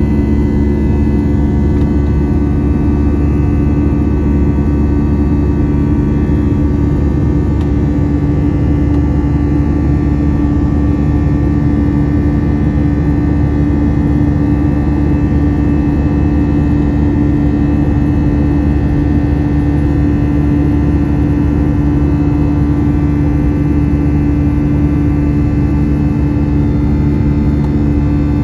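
Airbus A321 cabin noise during the climb after takeoff, heard from a window seat over the wing. The CFM56 turbofans at climb power give a loud, constant drone with several steady tones over a rushing airflow.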